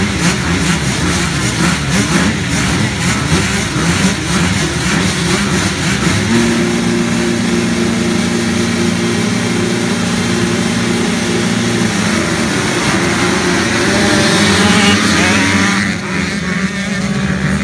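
A full line of motocross bikes revving on the starting gate, many engines blipping over each other, then held at a steady high rev for several seconds before the note rises as the pack launches.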